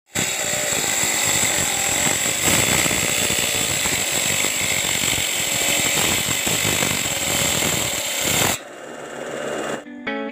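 Small homemade motor-driven wood-cutting saw running and cutting wood, a loud, rough machine noise that cuts off suddenly about eight and a half seconds in. Guitar music starts near the end.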